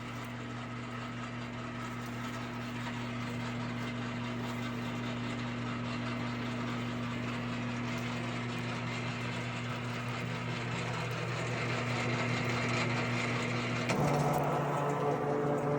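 CopperMine CT-500 automatic wire stripping machine running, its electric motor humming steadily as Romex cable is fed through the blades; the sound gets louder about fourteen seconds in.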